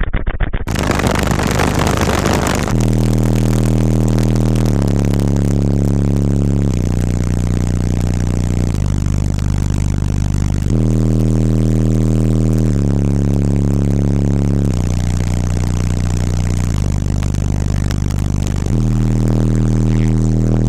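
Bass-heavy music played loud through a car audio system's subwoofers: long held deep bass notes that switch every two seconds in a repeating four-note pattern, after a brief noisy build-up at the start.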